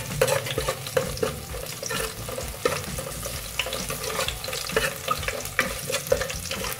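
Chopped garlic sizzling in hot oil in a metal pot, stirred with a metal spoon that scrapes and clinks against the pot at irregular moments.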